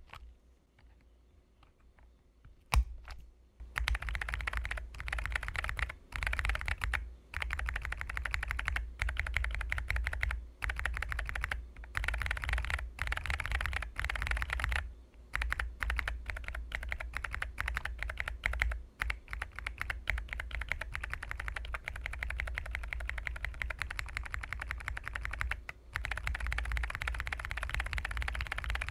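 Rapid typing on a mechanical keyboard fitted with Kailh Cyberpunk switches, the keystrokes coming thick and fast with a few short pauses. A couple of single key clicks come first, before the steady typing starts about four seconds in.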